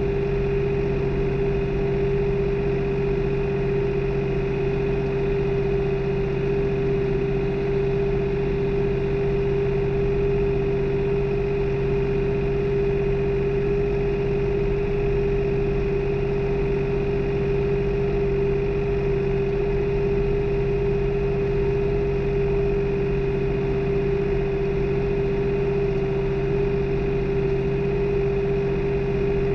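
New Holland tractor's diesel engine running at a steady, even speed during tillage, with no change in pitch or loudness.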